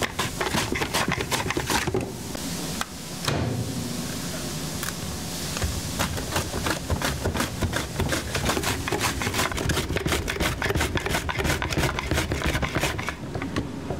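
Red onion being sliced on a mandoline slicer: the food holder is pushed rapidly back and forth over the blade, about four quick rasping strokes a second, with a short break about two seconds in.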